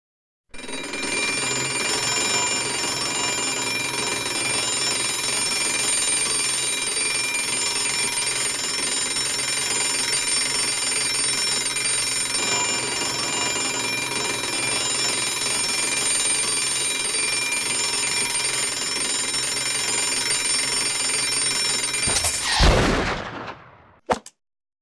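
Alarm clock ringing steadily for over twenty seconds, cut off near the end by a loud sudden bang with a falling tail, followed by a short click.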